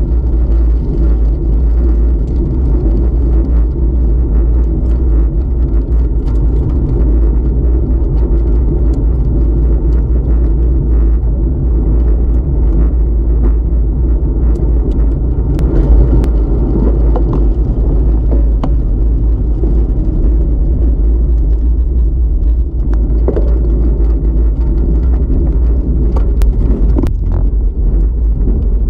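Wind buffeting the microphone of a bicycle-mounted camera while riding, a loud steady rumble, mixed with tyre noise on asphalt and scattered small clicks and rattles from the bike.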